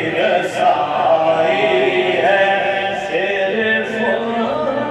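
Men's voices chanting an Urdu naat without instruments, in long drawn-out melodic lines.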